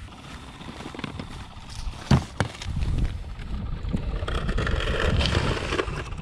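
Wind rumbling on the microphone and winter-jacket fabric rustling close by as the wearer moves on the ice, with one sharp click about two seconds in. The rustling grows louder after the click.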